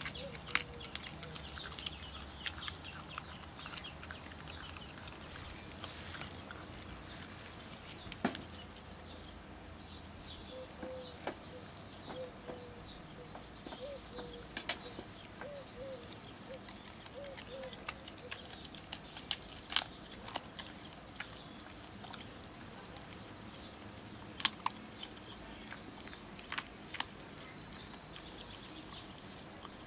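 A young Australian kelpie gnawing a raw lamb sparerib, with scattered sharp crunches and clicks of teeth on bone every few seconds.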